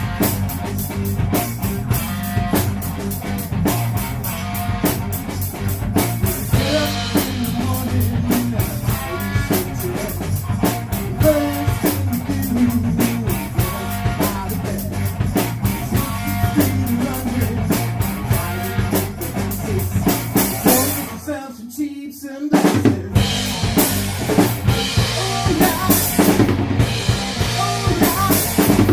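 Music with a driving drum-kit beat: kick drum, snare and cymbals keeping a steady rock rhythm. A little over two-thirds in, the bass and drums drop out for about a second, then the beat comes back in.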